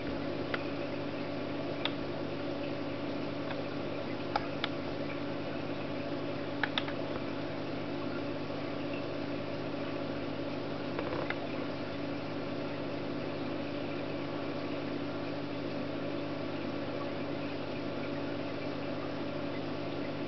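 A steady machine hum made of several low tones, with a handful of short, sharp clicks in the first half.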